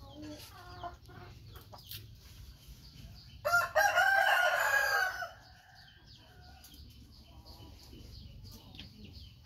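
A rooster crows once, a loud crow of under two seconds about three and a half seconds in.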